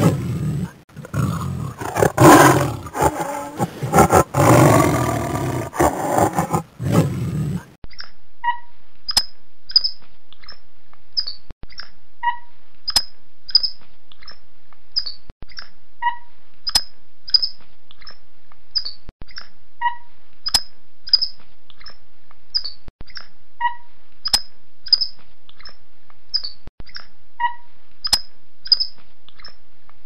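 A tiger growls and roars loudly and irregularly for about eight seconds, then stops abruptly. After it comes a repeating set of short, high chirps with a sharp click, the same pattern coming round about every four seconds, as in a loop.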